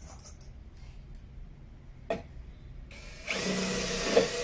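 A SfunPro 16V cordless drill/driver with a single sharp click about two seconds in, then its motor starting about three seconds in and running steadily at speed while driving a screw.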